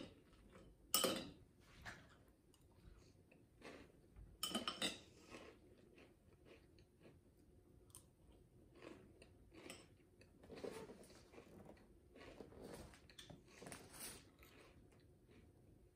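A metal spoon clinking against a cereal bowl while scooping Reese's Puffs, with sharp clinks about a second in and again around four and a half seconds in. After that come quieter crunches as the puffs are chewed.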